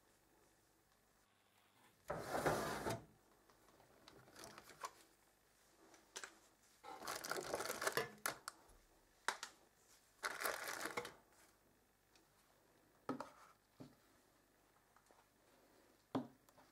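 A gloved hand rummaging through a metal drawer full of tangled cables and old mobile phones, in several short rustling, clattering bursts. Two short knocks near the end as Nokia phones are set down on a hard table.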